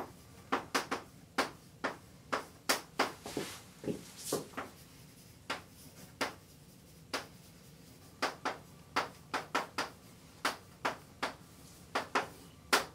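Chalk tapping and scratching on a blackboard as words are written by hand: a run of short, irregular taps, with a few longer scratchy strokes.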